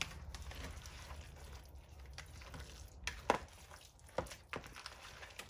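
Wooden spoon stirring a thick, wet casserole mixture of noodles, tuna and vegetables in a plastic mixing bowl, with soft squelching and a few light knocks of the spoon against the bowl a few seconds in.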